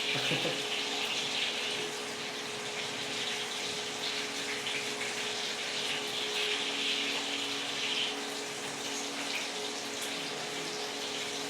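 Milkfish frying in hot oil: a steady sizzling hiss, with a steady low hum underneath.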